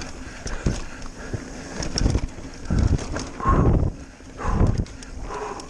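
Mountain bike riding fast down a dirt trail: tyre noise and rattling clicks from the bike over the rough surface, with several heavy rumbling gusts of wind on the microphone in the second half.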